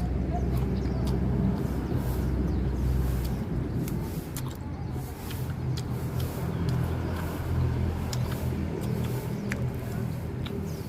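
Low, steady rumble of a motor vehicle's engine running close by, with a few faint small clicks over it.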